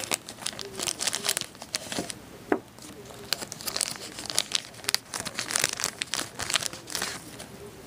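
Clear plastic bag crinkling and rustling in the hands, with irregular crackles throughout, as a hard plastic coin slab is slid out of it.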